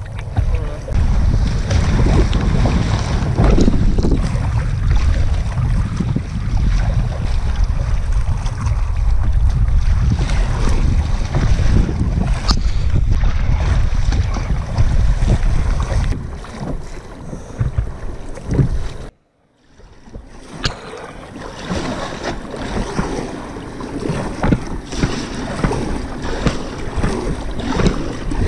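Wind buffeting the microphone and rough sea chop splashing against a kayak's bow as it is paddled. About two-thirds of the way through the sound cuts out for a moment, then lighter water splashing and paddle strokes carry on with less wind rumble.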